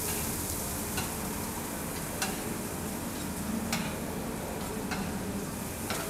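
Food sizzling as it cooks: a steady hiss with a few sharp crackles scattered through it.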